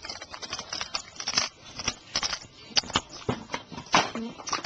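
Irregular rustling and clicking handling noise close to the microphone, as hands move plush toys on the carpet.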